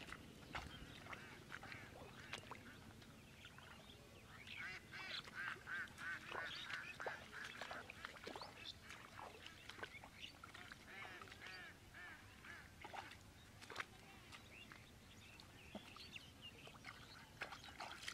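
Faint, repeated calls of domestic waterfowl, with a busy run of calls in the middle and a few more near the end, over scattered soft clicks.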